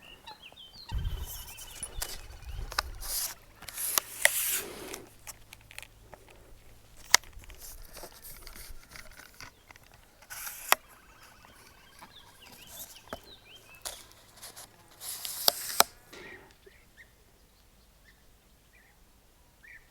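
Scattered rustling handling noises and a few sharp clicks close to the microphone, over faint short bird calls. The rustling dies down about three-quarters of the way through, leaving only the faint calls.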